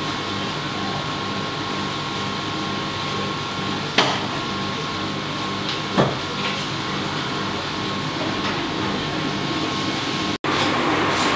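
Steady machine-like hum with two short sharp knocks about two seconds apart; near the end it cuts abruptly to a louder rumbling noise.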